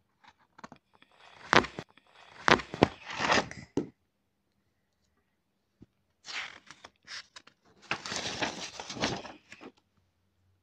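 Crackling, crinkling noise made of many sharp strokes, in two clusters of a few seconds each with a pause between them.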